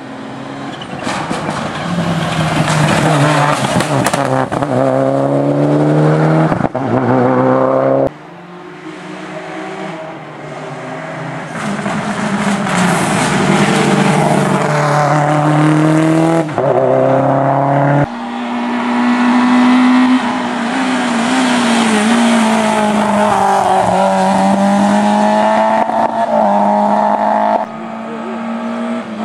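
Rally cars at full throttle on a wet tarmac stage, one after another. Each engine note climbs and steps through the gears as the car approaches, and sharp cracks come from the exhaust. Around the middle it is a Subaru Impreza. The sound cuts abruptly from one car to the next three times.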